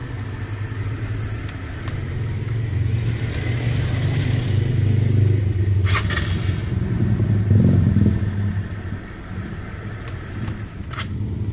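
Motorstar Easyride 150 CL motorcycle's 150 cc engine running after its hard-start fix, growing louder for a few seconds in the middle and then settling back, with a couple of sharp clicks.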